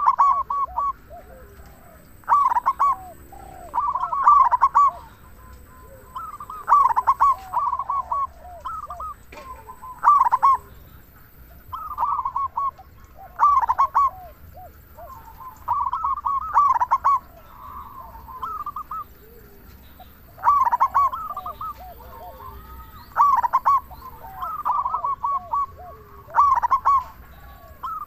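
Zebra dove (perkutut) cooing loudly in repeated phrases of quick rolling notes, about one phrase every two to three seconds.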